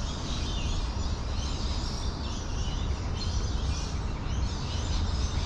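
Outdoor ambience: a steady low rumble, with faint bird chirping higher up.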